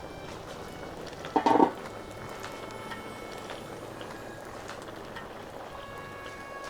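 A pot of stew bubbling on the stove, with one short loud sound about a second and a half in.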